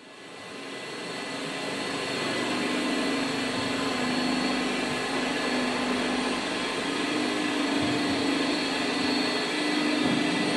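Beaver 250 walk-behind floor scraper running steadily as its blade strips rubber-backed carpet from a concrete floor: a continuous machine drone with a wavering hum. It fades in over the first second or two.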